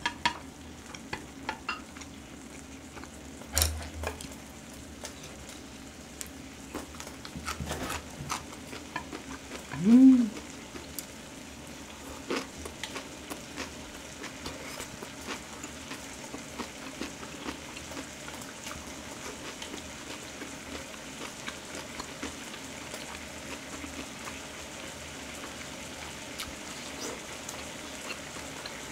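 Seasoned duck ribs sizzling and crackling steadily on a hot grill pan, with occasional light chopstick clicks and knocks against the pan. About ten seconds in there is a short rising hum, the loudest sound.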